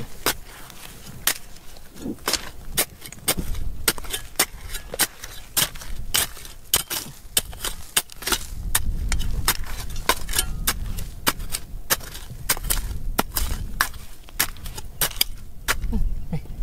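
Repeated sharp knocks of a hand digging tool striking rock, irregular at about two to three a second, with a low rumble underneath from about halfway.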